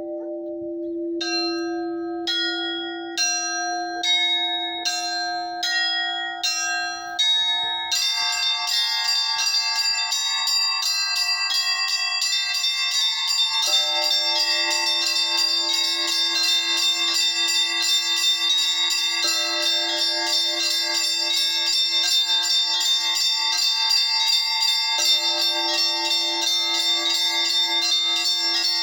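Russian Orthodox church bells rung by a bell ringer. A larger bell keeps ringing underneath while smaller bells strike singly about once a second. From about eight seconds in, the small bells ring fast and continuously in a full peal.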